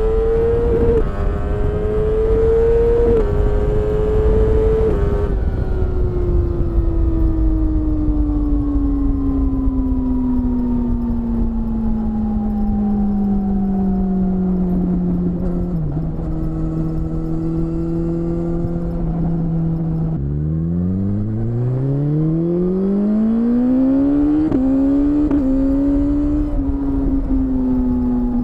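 BMW S1000RR inline-four sport bike engine heard from on board: it accelerates hard with quick upshifts in the first few seconds, then the pitch falls slowly for about ten seconds as it slows off the throttle and holds steady. About two-thirds through it pulls hard again, revs climbing through a couple of quick upshifts before settling into a steady run, with wind rush underneath.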